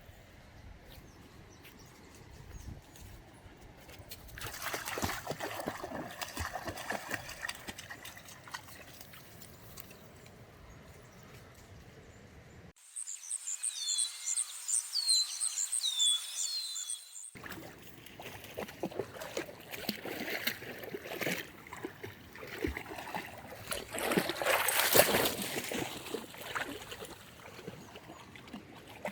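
Water trickling and splashing at a river's edge, with louder splashy stretches. In the middle, a few seconds of high, repeated bird chirps that fall in pitch.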